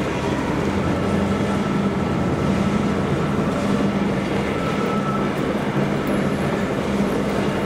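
Steady machinery hum with a low drone as a roundhouse turntable slowly turns a diesel locomotive.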